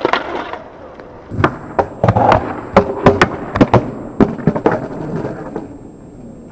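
A skateboard slam: the board clatters onto the brick paving, then a run of sharp, irregular cracks and knocks goes on for several seconds before fading out.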